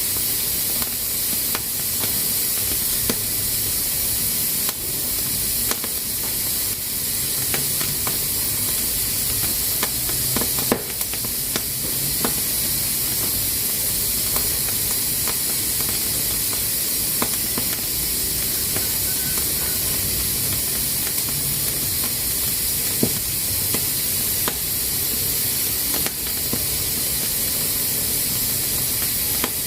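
Pressure cooker releasing steam through its valve in a steady, loud hiss, with a few sharp clicks scattered through it.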